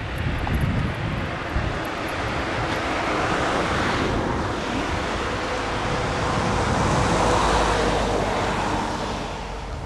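Road traffic passing by: a broad hiss of tyre and engine noise that swells as one vehicle goes past about four seconds in, and swells again more slowly around seven to eight seconds in before fading.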